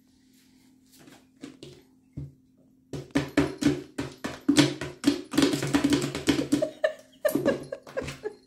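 Drum sound effect: a fast run of drum hits, a few scattered knocks and then a dense fill from about three seconds in. Under it, a steady low hum from a running pet water fountain pump.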